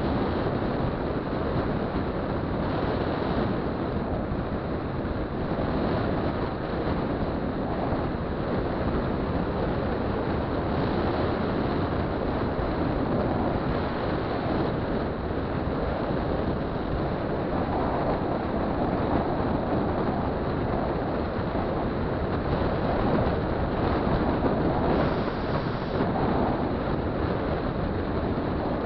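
Wind rushing over the microphone of a derestricted 50cc two-stroke scooter cruising steadily, its engine and road noise blended into a constant roar.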